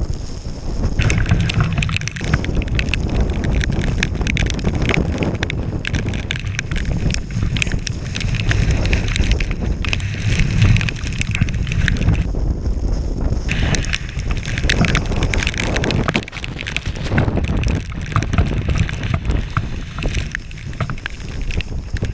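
Storm-force wind buffeting the microphone in heavy, uneven gusts, with a dense crackle of sharp clicks over most of it that drops away briefly about halfway through.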